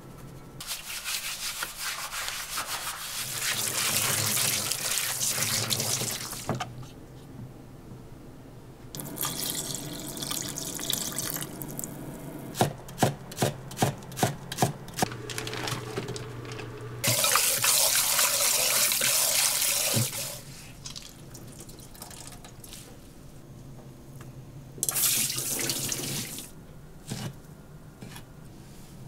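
Kitchen tap running into a sink in several stretches. Midway, a quick run of about seven knife strokes on a wooden cutting board, slicing green onion.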